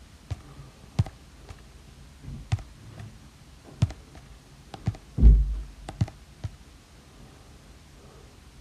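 Stylus tip tapping and clicking on the iPad Pro's glass screen at irregular intervals, about eight sharp taps, with one louder dull thump a little past halfway.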